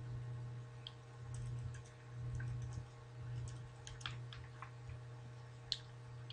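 Faint, scattered clicks of a computer keyboard and mouse, a few separate taps rather than continuous typing, over a steady low hum.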